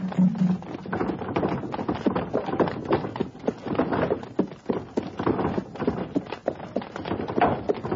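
Horse hooves clip-clopping on a street: many quick, irregular knocks throughout.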